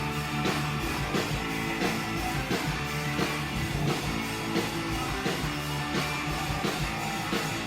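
Live rock band playing an instrumental passage between sung verses: electric guitar over a steady drum beat.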